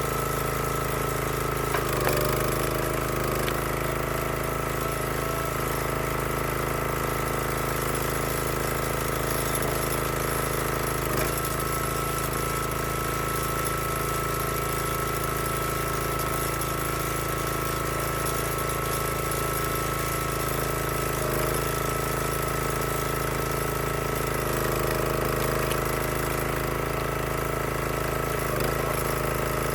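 Engine of a log splitter running at a steady speed, with only slight changes in its note now and then.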